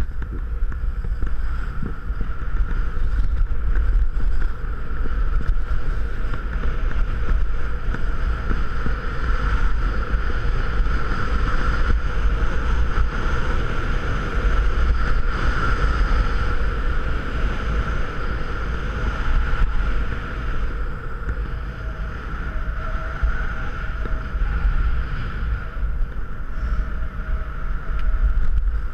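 Wind buffeting the microphone of a body-worn camera while skiing downhill, with the steady hiss of skis sliding over packed snow.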